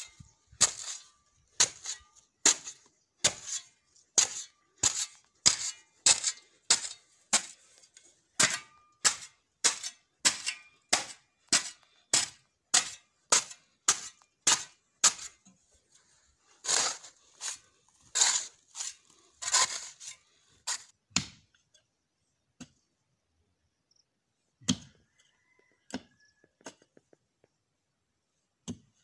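A long-handled metal digging tool chopping into loose soil in quick, regular strokes, about two or three a second. A few heavier strokes follow about halfway through, and then only scattered knocks.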